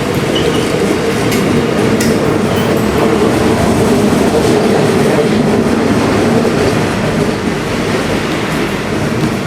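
Long freight train rolling past on steel wheels, a steady loud rumble with a few sharp clicks from the wheels on the track.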